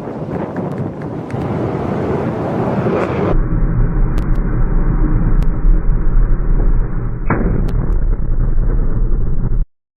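Intro sound effects: a loud whooshing rush with scattered cracks, then a heavy, deep rumble in the manner of artillery fire, which cuts off suddenly near the end.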